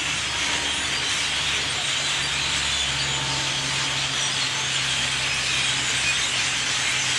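Dense chatter of a huge roosting bird flock in trees: countless overlapping calls merge into a steady hissing wall of sound. A low steady hum runs underneath.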